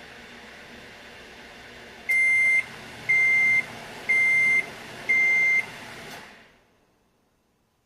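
Microwave oven running with a steady hum, then sounding four long beeps at one high pitch, a second apart, the end-of-cooking signal; the hum dies away about a second after the last beep.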